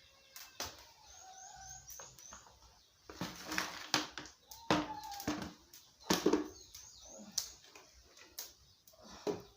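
Knocks and scrapes of utensils on a cooking pot as maize flour is poured and stirred in to make ugali. Short high chirps come twice, near the start and near the end.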